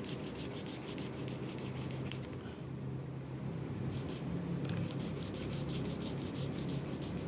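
Rapid back-and-forth scrubbing of a laptop's RAM while it is being cleaned, at about eight strokes a second. There is a sharp click about two seconds in, then a pause of about a second and a half before the scrubbing resumes.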